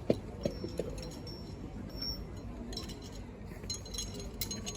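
Sharp metallic clicks and clinks of pistols being handled: a few clicks in the first second, then a flurry of ringing clinks near the end, over a low background hubbub.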